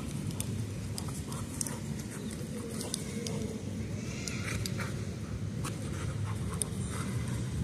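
Dog panting as it chases and leaps at a flirt-pole lure, with scattered light clicks. Underneath runs a steady low rumble of wind and street traffic.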